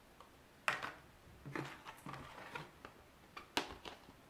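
A cardboard art-kit box being handled: a few separate soft knocks and scuffs with short pauses between them.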